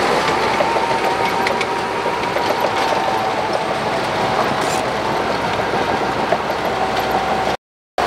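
Shantui crawler bulldozer working: its diesel engine runs steadily with a whine held over it and irregular clanking from the steel tracks. The sound cuts out for a split second near the end.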